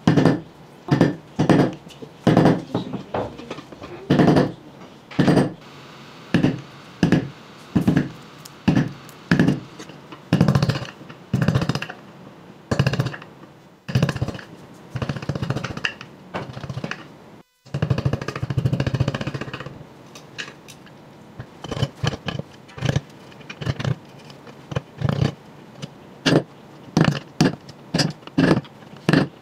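Repeated blows of a hand tool striking a block of wood, about one to two a second and unevenly spaced, with a short break about two-thirds of the way in.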